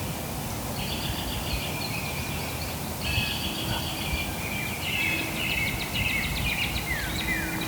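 Small songbirds singing: buzzy trilled phrases, then a run of quick downslurred chirps toward the end, over a steady low background rumble.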